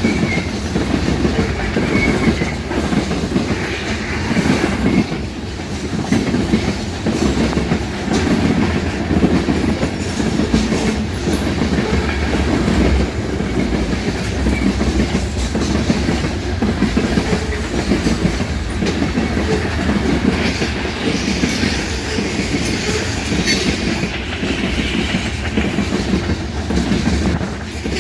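Ferromex freight train rolling past, its wheels clicking and knocking steadily over the rail joints.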